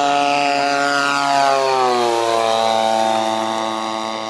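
Radio-controlled Phoenix Model P-51 Mustang scale model flying a low pass, its motor and propeller running at a steady high note. It is loudest about a second and a half in, then drops in pitch as it goes by and grows fainter as it climbs away.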